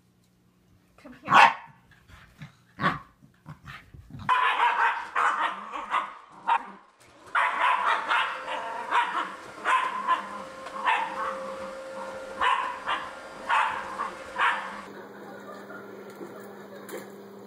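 A corgi makes a few separate sounds, then barks rapidly and over and over for about ten seconds at an upright vacuum cleaner.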